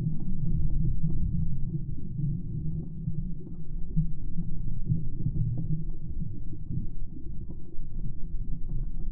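Underwater ambience picked up by a submerged GoPro: a muffled, uneven low rumble of water moving around the camera, with faint scattered clicks and crackles.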